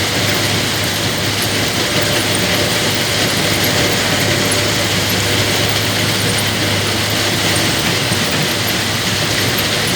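Caterpillar 320 GC excavator's diesel engine running steadily under work, a constant low hum with a hiss of machinery noise over it.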